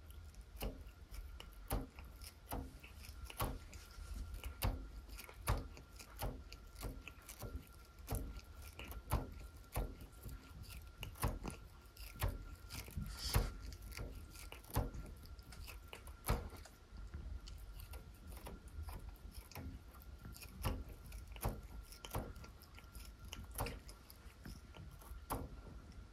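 Cat biting and plucking the taut string of a wand toy with its teeth, making low twanging thumps, like a plucked bass string, about one or two a second at an uneven pace. A faint steady high tone runs underneath.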